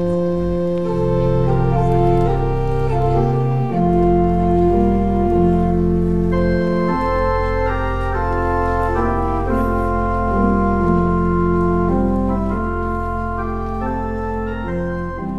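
Church organ playing offertory music: held chords over long sustained bass notes, the chords changing every second or so, getting softer near the end.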